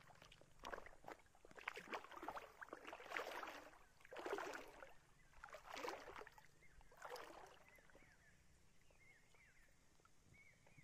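River water splashing and sloshing in irregular bursts as a fishing net is pulled out of the water to check the catch. It dies down after about seven seconds.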